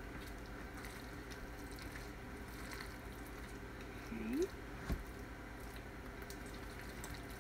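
Soft, wet squishing and scraping of creamy potato salad being stirred and pressed with a utensil in a plastic mixing bowl, with a single knock about five seconds in.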